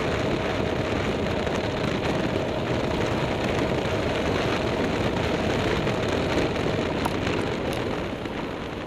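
Vehicle climbing a mountain road, heard from an onboard camera: a steady rush of engine and wind noise with a faint running tone. It eases off near the end as the vehicle slows for a hairpin.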